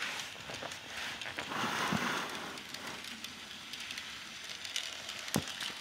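Bachmann N-scale Durango and Silverton model steam locomotive and coaches running on sectional track: a faint, crackly whirring of the tiny motor and wheels over the rails, swelling briefly about two seconds in, with one sharp click a little after five seconds.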